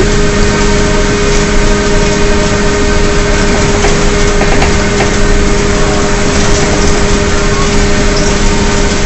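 Inside a 2009 Gillig Advantage transit bus moving at a steady speed: its Cummins ISL diesel and Allison B400R transmission running with a steady, unchanging howl over road noise.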